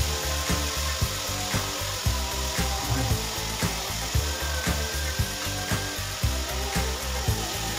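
Background music with a steady beat of about two beats a second, over the scraping of a metal spoon stirring a sautéing mixture in a cooking pot.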